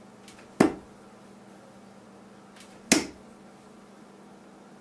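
Two 26-gram steel-tip darts striking a dartboard one after the other: two sharp thuds about two seconds apart.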